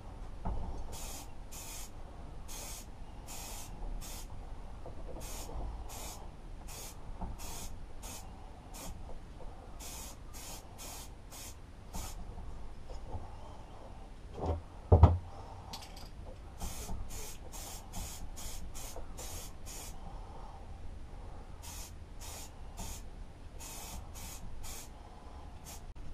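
Aerosol spray paint can hissing in many short, separate bursts, about one a second, as a lawnmower engine is sprayed. The bursts pause briefly in the middle, where two loud knocks come about half a second apart.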